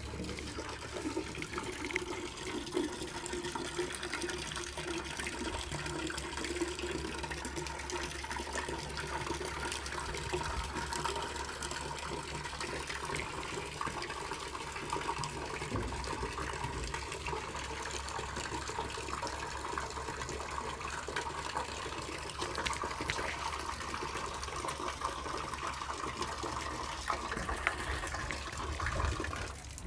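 Water running steadily, as from a pipe or hose, with a faint steady hum under it.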